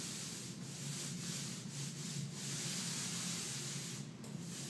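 Paint roller rolling wet paint onto a wall: a steady rubbing hiss, broken by brief dips about every half second as the strokes go up and down.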